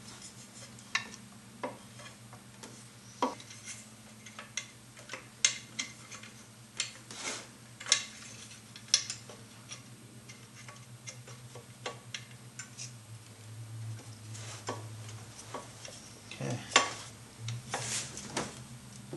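Scattered light clicks and taps of a fuel rail and its fuel injectors being handled and pressed into their seats, the O-ring seals greased with Vaseline, with a few louder knocks near the end. A low steady hum runs underneath.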